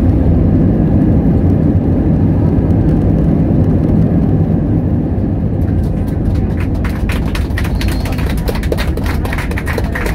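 Cabin noise of an Airbus A319 rolling out on the runway after landing: a loud, steady low rumble of the engines and the wheels on the runway, easing slightly about halfway. About six seconds in, a rapid clatter of clicks and rattles joins it.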